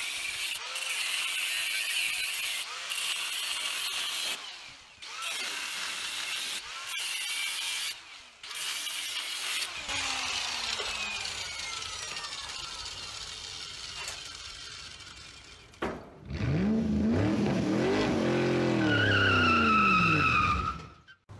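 Angle grinder cutting through the steel shelf of a workbench in several passes with short pauses, then winding down after it is switched off, about ten seconds in. Near the end comes a short intro sting: an engine revving up and back down, with a high tyre squeal.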